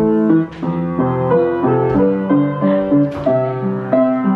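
Upright piano being played: a melody over held chords, with the notes changing a few times a second.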